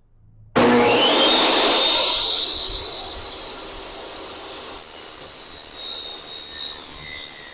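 Portable table saw switched on about half a second in, its motor whining up to speed and then running steadily. About five seconds in it gets louder, with a high-pitched screech as the steel-cutting blade bites into 20-gauge sheet steel.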